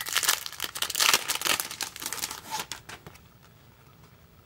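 Clear plastic wrapper crinkling and tearing in quick, irregular crackles as it is peeled open around a stack of photo cards, stopping about three seconds in.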